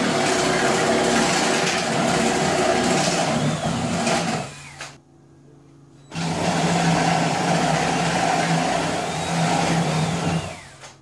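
Power drill spinning a 1-inch paddle bit, boring countersink holes for carriage bolts into the trailer floor. It runs, winds down and stops about halfway, then starts again and runs for a few seconds before winding down near the end.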